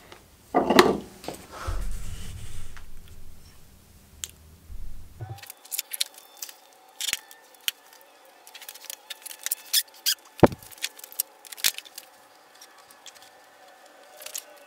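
Hand-stitching leather: many short, sharp clicks and rasps as a needle is pushed through the stitching holes and thread is drawn through the leather. A loud knock and a few dull thuds come in the first few seconds.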